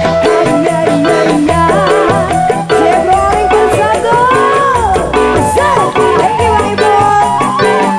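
Live dangdut band playing, with a bamboo suling flute carrying a wavering, gliding melody over percussion, bass and guitar.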